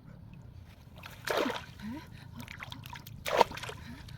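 Water splashing twice, the first splash about a second in and a louder, shorter one near the end.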